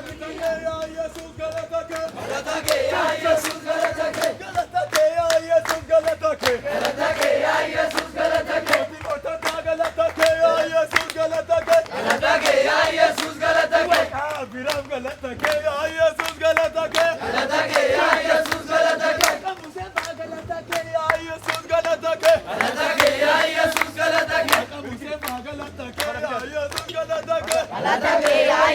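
Worshipping congregation singing and shouting together, with regularly spaced hand-clapping over music.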